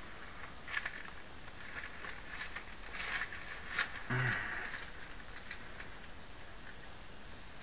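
Scattered light clicks and handling rustles, several seconds apart, in a quiet room, with a brief low hum about four seconds in.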